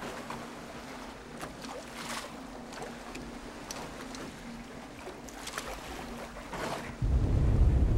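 Sea ambience with wind and water moving around a boat, with scattered small knocks. About seven seconds in, a loud, low music drone starts suddenly.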